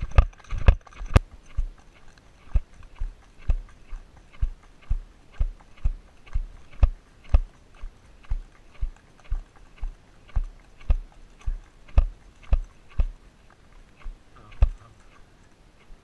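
Sharp, even clicks about twice a second, keeping time with a walking Icelandic horse's stride.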